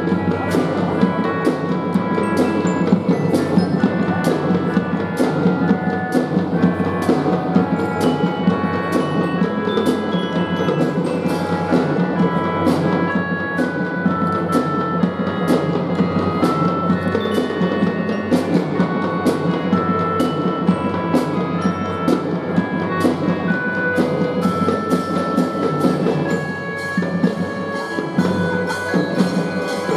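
Children's drum-and-fife band playing, a bright mallet-percussion melody with other pitched instruments over regular drum beats.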